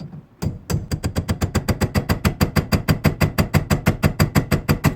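Rapid, even hammer blows on a pin punch, about eight a second, with a light metallic ring, driving at the seized shifter-lever pivot pin of a 1965 Ford Thunderbird; the pin is not moving.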